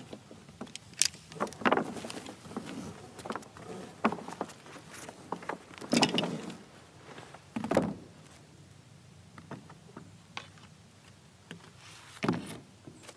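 Irregular thumps, scuffs and rustles of work on a roof: footsteps on the roof deck and a plastic tarp being handled. The loudest knocks come about a second in, about six seconds in, shortly before eight seconds, and near the end.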